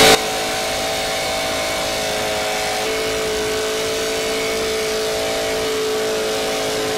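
Small engine of a homemade light aircraft running steadily at high speed under a broad hiss. There is a brief louder burst right at the start, and the engine's pitch shifts slightly about three seconds in.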